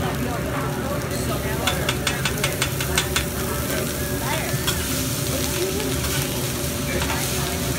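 Fried rice and egg sizzling on a hibachi griddle while the chef's metal spatulas scrape and chop across the steel plate. About two seconds in comes a quick run of sharp clicks, spatula edges rapping the griddle, for about a second and a half.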